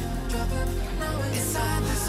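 Electronic background music with a steady bass line and sustained synth notes.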